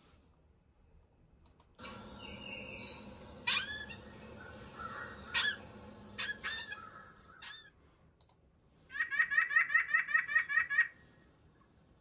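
White-breasted nuthatch calling: a few short separate calls over a background hiss, then, about nine seconds in, a fast run of repeated notes, about eight a second for nearly two seconds.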